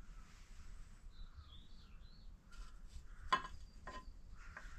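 Quiet handling of an aluminium engine oil seal cover and its gasket: a few light clicks and one short metallic clink in the second half. A faint bird chirp comes early on.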